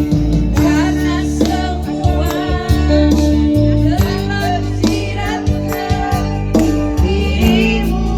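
Music with a woman's singing voice over a steady beat and guitar.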